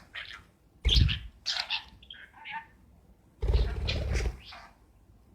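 Pet talking bird vocalising in short bursts of mimicked sounds and chirps, with two louder bursts, one about a second in and one lasting most of a second from about three and a half seconds in.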